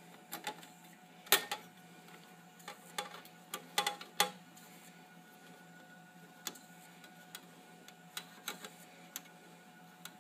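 Irregular clicks and metallic knocks from handling the hinged metal front cover and selector controls of an Ampex 440 tape recorder's electronics unit. They come in two clusters, with the sharpest knock about a second in, over a faint steady hum.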